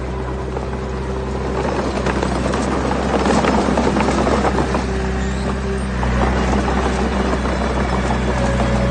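Heavy earthmoving machine's diesel engine running steadily, with stones clattering and grinding that swell from about two seconds in as rock is dumped or pushed.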